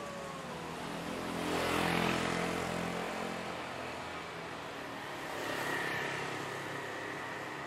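A motor vehicle passing close by on a city street, its engine swelling to a peak about two seconds in and fading away. A second, fainter swell follows near the end with a thin high whine, over steady traffic noise.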